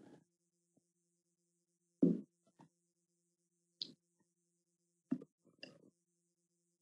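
About five short, faint knocks and clicks spread over a few seconds, over a low steady hum, picked up by a computer microphone.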